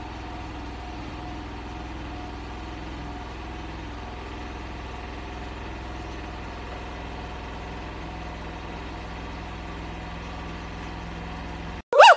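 A steady low hum with faint constant tones and no distinct events. Right at the end it cuts to loud gibbon calls, quick whoops sliding up and down in pitch.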